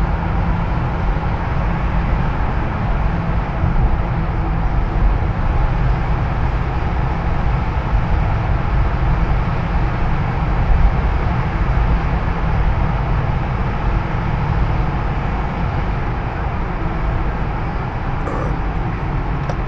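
Steady road and engine noise heard from inside a car's cabin while driving through a road tunnel, a constant low rumble with no change in pace.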